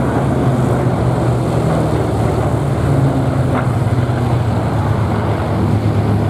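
Rolls-Royce Merlin V12 engines of Hawker Hurricane fighters flying past overhead, a loud, steady low drone of several propeller aircraft.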